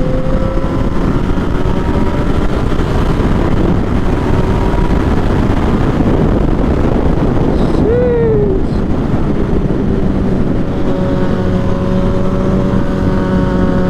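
Yamaha FZ-09 motorcycle's three-cylinder engine running steadily at speed, heavily mixed with wind noise on the microphone. The engine note is plainest near the start and again in the last few seconds, with a brief falling tone about eight seconds in.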